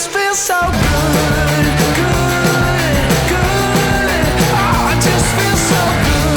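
Upbeat pop song with a steady beat. Its bass drops out briefly at the start, then the full backing comes back in, with no lyrics sung.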